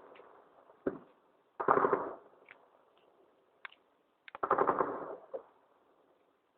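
Bursts of automatic gunfire echoing: a single shot about a second in, a rapid burst just under two seconds in, and another longer burst about four and a half seconds in, each trailing off in echo.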